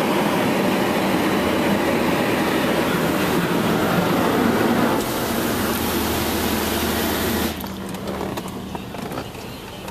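High-pressure water jets of a touchless automatic car wash's rocker-panel spray hitting the car body, heard from inside the car as a loud steady hiss of spray. It eases slightly about five seconds in and cuts off about seven and a half seconds in, leaving a quieter steady low hum.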